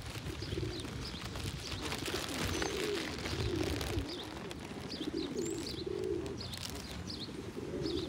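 Feral rock pigeons cooing over and over, low wavering calls, with faint high chirps of other birds above them.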